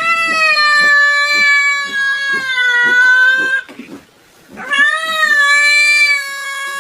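A cat yowling: two long, drawn-out calls, the first lasting about three and a half seconds, the second starting about a second after it ends.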